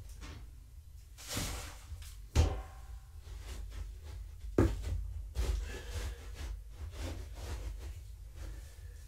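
Objects being handled: rustling and scattered clicks, with two sharp clunks about two and a half and four and a half seconds in, the first ringing briefly.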